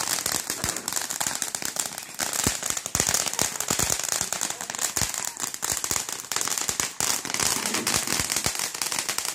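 Consumer fireworks going off: a dense, irregular string of sharp crackling pops over a steady high hiss.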